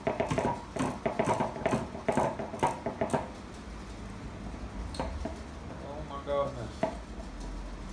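Small metal lock parts clicking and clattering rapidly and irregularly for about three seconds, then a few single clicks, with a brief murmured voice about six seconds in.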